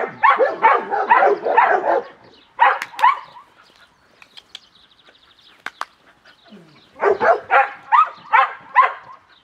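Cimarron Uruguayo dog barking in quick runs of short barks, several a second. A burst comes at the start, a couple more follow around three seconds in, then after a pause another run near the end.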